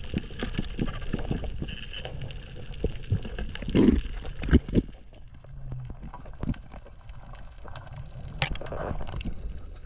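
Water sloshing and gurgling with many small irregular clicks and knocks, and a few louder thumps around the middle; quieter and duller in the second half.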